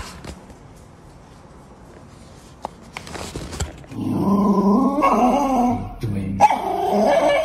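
Small dog growling in two long, wavering stretches, the first starting about four seconds in and the second after a short break.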